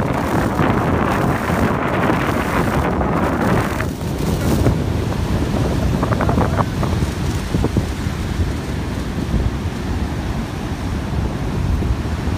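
Wind buffeting the microphone over the steady wash of breaking ocean surf. The brighter hiss drops away about four seconds in, leaving mostly a low rumble.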